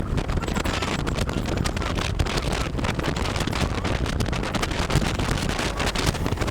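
Steady wind buffeting on the microphone with low rumble, as heard while riding a Kymco Candy 3.0 electric scooter on the road.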